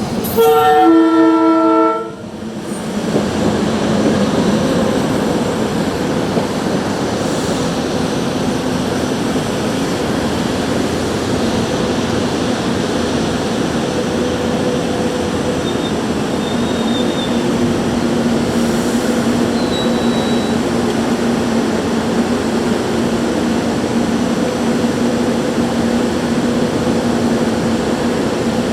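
Locomotive horn sounding and cutting off about two seconds in, then a train rolling steadily through the grade crossing, with an even rumble of wheels and cars.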